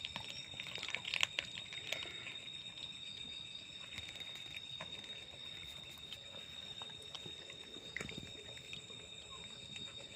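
A cat eating: scattered small clicks and crunches, busiest about a second in and again near the end. A steady, high-pitched insect trill runs behind them.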